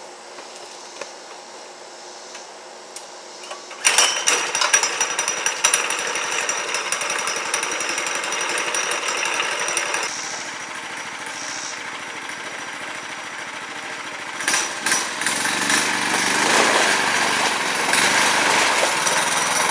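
Predator 212 single-cylinder engine on a go kart with a torque converter, running quietly at first, then revved up sharply about four seconds in with a rapid, even firing beat. It eases off around ten seconds and picks up again near the end.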